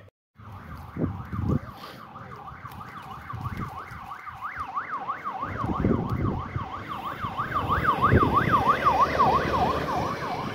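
Fast up-and-down yelp siren on a rally zero car, a pickup, growing louder as it approaches and passes, with the pickup's engine and tyres underneath. The siren warns that the stage is about to go live and clears it ahead of the competing cars.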